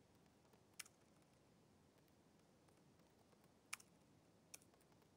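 A few faint, widely spaced computer keyboard key clicks, about three clear ones, over near silence.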